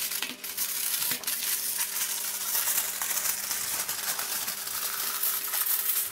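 Aluminium foil crinkling and rustling as it is folded by hand over a joint of beef and pressed down into a parcel, with a faint steady hum underneath.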